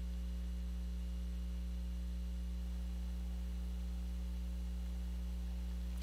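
Steady low electrical hum, unchanging throughout; no keypad beeps are heard.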